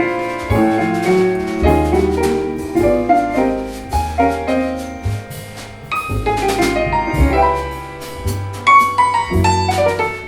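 Live jazz: keyboard playing chords and melodic runs, with double bass notes underneath and a drum kit with cymbals keeping time.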